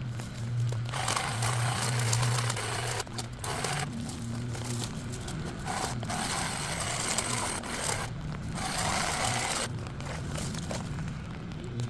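A small engine-powered yard tool running steadily, with several bursts of harsh cutting noise a second or two long that start and stop abruptly, as it is throttled up into the growth.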